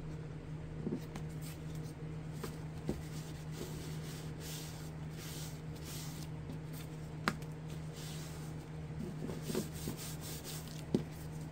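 Tissue or paper towel rubbing and wiping over a freshly glued paper pocket, soft repeated swishing strokes, with a few light taps and a steady low hum underneath.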